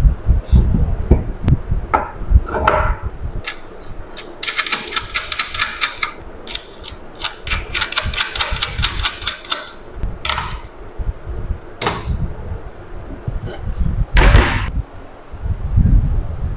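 Workshop tool-handling sounds: scattered knocks and thuds, two runs of rapid clicking about four and eight seconds in, and a few sharp scraping strokes near the end.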